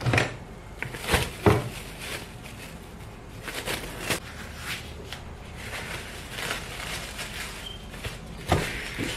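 Plastic cling film rustling and crinkling as it is pulled and stretched over a bowl, with a few sharp knocks, two about a second in and one near the end.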